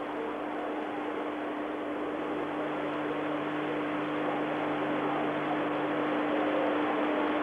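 Steady hubbub of a large stadium crowd, slowly growing louder, carried on an old broadcast recording with a steady electrical hum under it.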